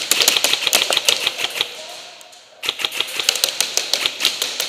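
Airsoft guns firing on full auto, a rapid string of sharp clacking shots in two long bursts with a pause of about a second between them.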